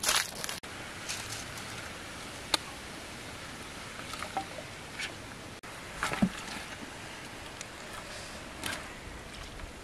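Steady rushing of a flowing river, with a few brief knocks and splashes from a chicken being handled in a clay pot of hot water.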